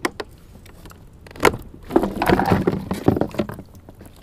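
A Hobie kayak's pedal fin drive being unlatched and lifted out of its hull well, with plastic and metal parts clicking and knocking. A couple of sharp clicks come at the start, a single knock about a second and a half in, and a run of clattering about two to three seconds in.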